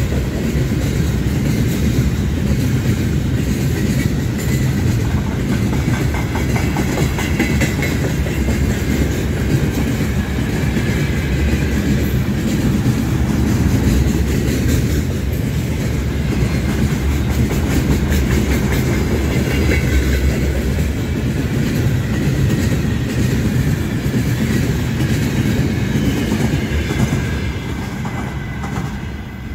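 Freight train gondola wagons rolling past close by, wheels rumbling and clacking over the rail joints, with a faint high wheel squeal that comes and goes. The sound fades in the last couple of seconds as the end of the train passes.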